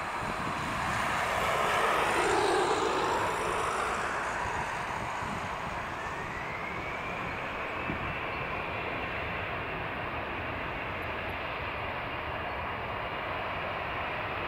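Airbus A320's CFM56 jet engines running as it taxis onto the runway. In the first few seconds a louder jet rush swells and falls in pitch. From about six seconds in, a fan whine rises in pitch, then holds steady.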